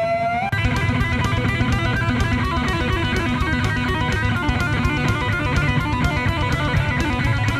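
Backing music: an electric guitar holds a note that bends upward, then about half a second in breaks into a fast run of notes over a steady drum beat.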